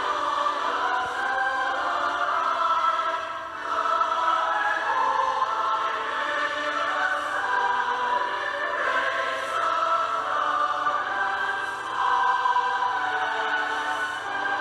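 A choir singing a song in held notes and phrases, with short breaks between phrases about three and a half seconds in and again near twelve seconds.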